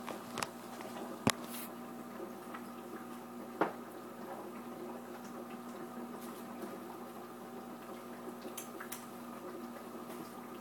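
Aquarium sponge filter bubbling over a steady hum, with three sharp clicks in the first few seconds.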